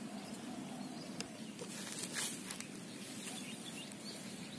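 Faint outdoor ambience with a few soft rustles and clicks, around one to two and a half seconds in, from an uprooted Mimosa pudica plant's stems and roots being handled.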